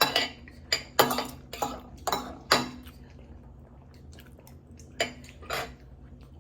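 Cutlery clinking against a plate while eating. There are about six sharp clinks in the first three seconds, then two more about five seconds in.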